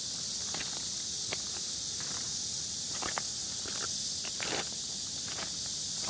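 Irregular crunching steps on loose river stones over a steady high-pitched hiss of insects.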